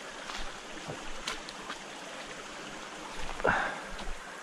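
Small spring-fed creek running over rocks, with a few footsteps as someone steps across it and a louder step or scuff about three and a half seconds in.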